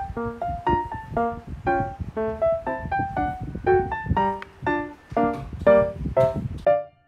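Background music: a piano melody of short, evenly paced notes over a low bass layer that drops out near the end.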